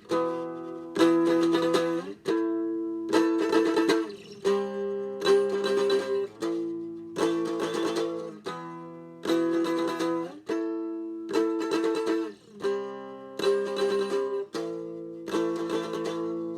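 Acoustic guitar playing strummed chords with no singing, one strum about every second, each ringing out before the next, the chord changing every few strums as the song winds to its end.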